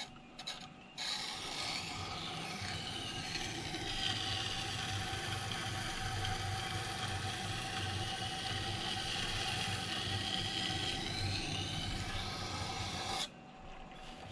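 Knife blade grinding on the rotating stone of a wet sharpening system, at the heel of the blade: a steady scraping hiss with a ringing tone that dips and then rises again. The grinding cuts off about a second before the end, leaving a steady machine hum.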